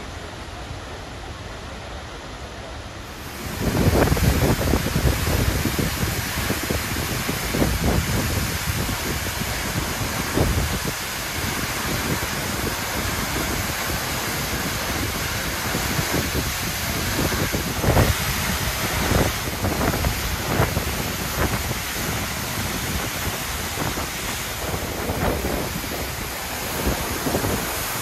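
A waterfall rushing steadily. About three seconds in it turns much louder and closer, with gusts of wind and spray buffeting the microphone.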